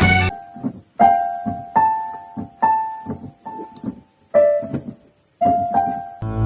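Background music: a slow piano melody of single notes struck about once a second, each ringing and fading, with a short break before a fuller accompaniment with bass comes in near the end.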